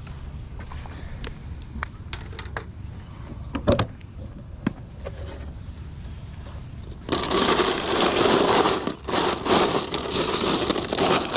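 Ice cubes rattling and crunching in a styrofoam cooler as hands push a fish down into them, loud and continuous from about seven seconds in. Before that, a few light knocks and taps, one louder near four seconds in.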